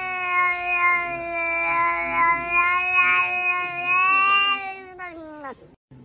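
A cat's single long, drawn-out meow held at a nearly steady pitch, falling away and stopping about five and a half seconds in.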